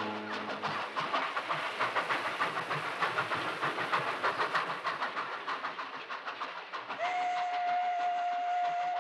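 An unseen passing train, its wheels clattering over the rail joints in a quick, even rhythm that fades. About seven seconds in, a long, steady train whistle begins and holds one note.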